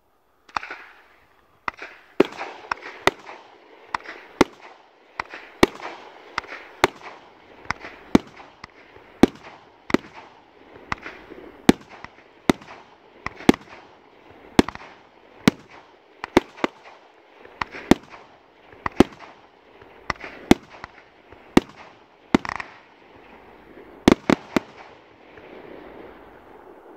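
Ghengis category 4 firework cake firing its shots: a steady run of sharp bangs, about one or two a second, with a noisy wash between them. It ends with a quick cluster of three bangs near the end, then the sound fades.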